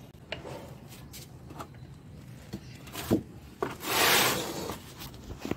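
Potting soil being scooped and scraped out of a pot with a flat scoop: scattered scrapes and small knocks, then a louder gritty rush of soil about four seconds in.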